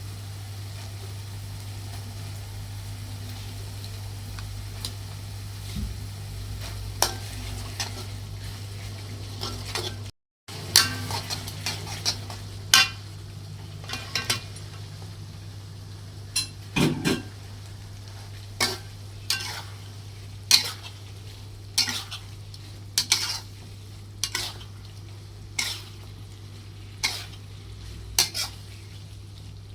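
A spatula stirring in a frying pan, scraping and knocking against it about once a second, over the sizzle of chicken frying in chili sauce. A steady low hum runs underneath.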